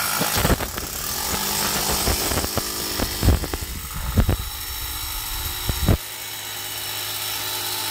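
A steady mechanical hiss with scattered knocks and bumps, a few louder ones in the middle; a low rumble underneath cuts off suddenly about six seconds in.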